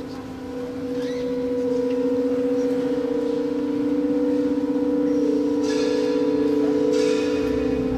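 Slow ambient background music: two low tones held throughout, wavering gently, with brief higher ringing notes about six and seven seconds in.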